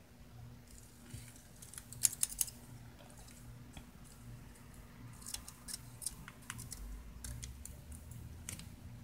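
Small scissors snipping through a narrow strip of paper: a series of short sharp snips, the loudest few about two seconds in, with more snips through the second half.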